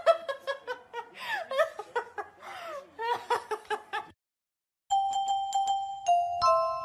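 A child laughing and squealing in quick, breathy bursts for about four seconds. After a brief silence, a chiming tune of bell-like notes starts about five seconds in.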